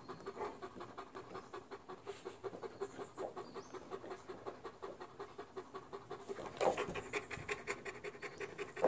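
A large dog panting quickly and evenly, several breaths a second, with one brief louder rustle about two-thirds of the way through.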